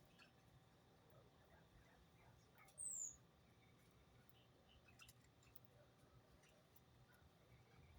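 Small birds chirping faintly and sparsely, with one thin, high note falling in pitch about three seconds in.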